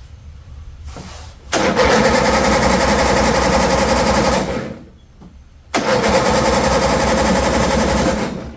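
John Deere Z225 zero-turn mower engine cranked on its electric starter twice, about three seconds each time, turning over without catching, with a rubbing noise. The owner takes the no-start for a spark issue.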